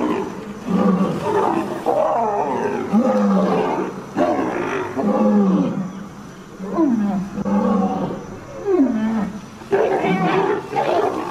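Deep, rough calls from a large wild animal, repeated about once a second with short gaps. Each call slides down in pitch.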